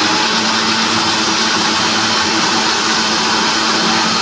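Electric blender running at full speed, grinding soaked rice with a little water into batter: a loud, steady whirr with a constant hum. The rice had soaked only two or three hours, so the motor is under heavy load.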